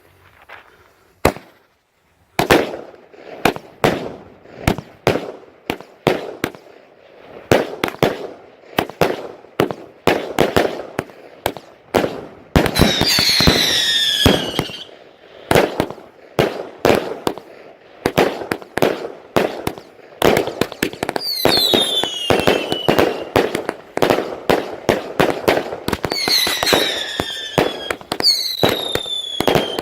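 A firework cake firing a rapid string of shots, about two a second, with the aerial bursts cracking overhead. Several high whistles fall in pitch, mostly in the second half.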